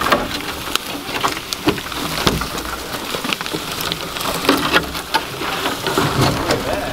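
Dry brush, twigs and branches crackling and snapping as a golf cart pushes through thick undergrowth: a dense, continuous clatter of small cracks and scraping.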